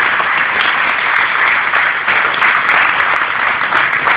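Stadium crowd applauding steadily: dense, sustained clapping from many spectators.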